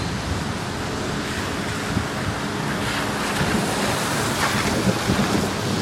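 Strong thunderstorm wind blowing in gusts, with a steady rushing hiss and irregular low buffeting of the wind on the microphone.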